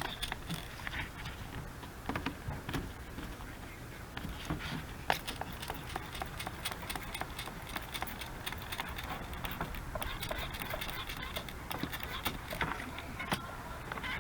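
Hot water spraying and spattering onto the engine's cleaned water pump mounting surface, flushing out debris: a steady hiss of spray with many small splashes and drips.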